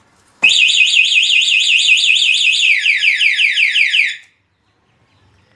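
Motorcycle anti-theft alarm siren going off in full after its spoken warning. A loud electronic warble starts about half a second in, changes partway through to fast falling sweeps of about five a second, and cuts off abruptly about four seconds in.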